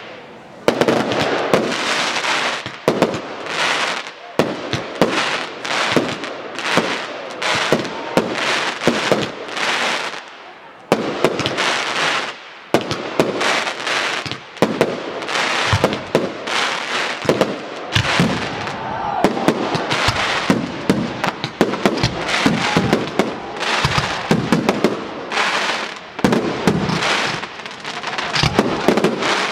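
Aerial fireworks display: a rapid, almost unbroken barrage of shells and comets launching and bursting, with crackling, and a brief lull about ten seconds in.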